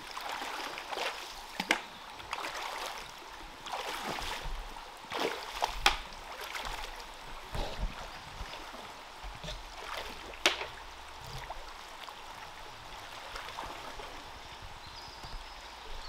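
A wader's legs pushing through a shallow river, water swishing and splashing in uneven surges with each step over the steady run of the stream, with a few sharp clicks.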